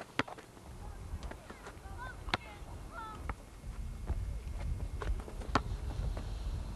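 Basketball being played: a ball bouncing on a hard court in single irregular knocks, with a few short squeaks near the middle over a low rumble.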